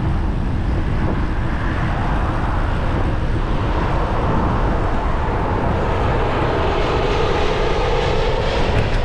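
An airplane's engines rumbling overhead, growing louder from about halfway through as the aircraft nears, over a steady low rumble of wind on the microphone.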